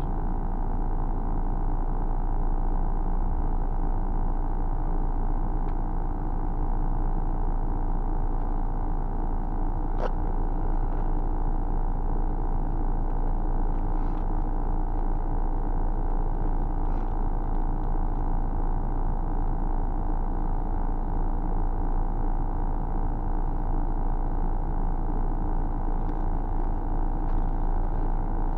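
Steady low hum of a bus engine and cabin heard from inside the bus while it sits in slow traffic, with a single sharp click about ten seconds in.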